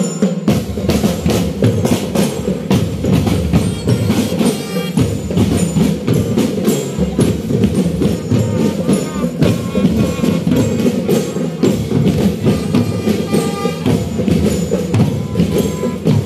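Marching band drum line playing: snare drums and bass drums struck in a fast, continuous cadence of dense strokes.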